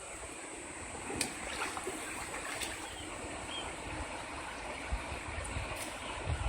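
Mountain stream flowing: a steady rush of water, with a few faint clicks.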